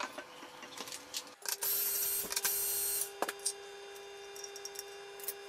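Handling noise of the pan-tilt mount's hard plastic arm: scattered clicks and a scraping rub about 1.5 to 3 seconds in, then a faint steady hum.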